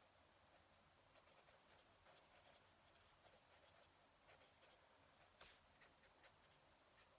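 Fountain pen nib writing on paper: faint, irregular little scratches and ticks of the strokes, one slightly stronger scratch about five and a half seconds in.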